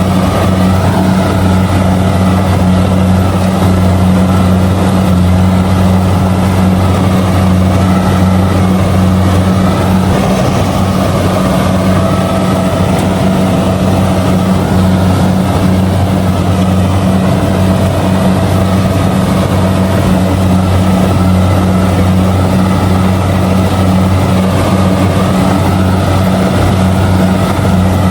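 Kubota DC70G combine harvester running steadily while harvesting rice, its diesel engine giving a loud, even drone with no change in speed.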